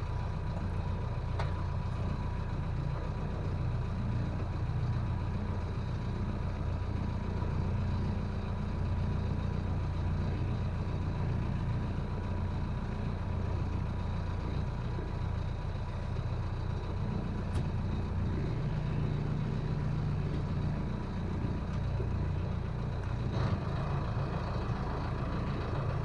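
Boat engine idling with a steady low rumble, a faint high tone running steadily above it.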